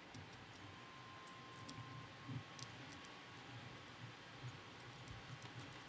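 Faint, scattered small clicks and soft handling noise as a nut is fitted onto a screw on the plastic frame of a hexapod robot kit.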